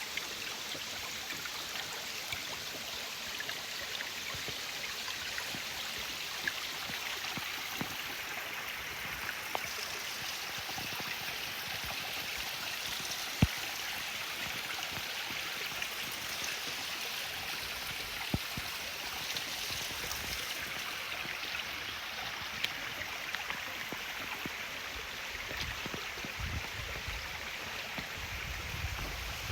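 Mountain stream running over rocks: a steady rush of water, with a few sharp clicks, the loudest about halfway through, and a low rumble near the end.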